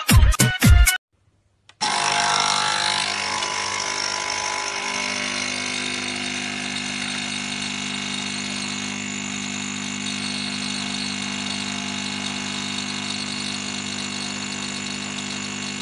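Capsule espresso machine's pump running while it brews into a cup: a steady mechanical hum that starts abruptly about two seconds in, slightly louder at first and then even. It follows a second of dance music that cuts off into a brief silence.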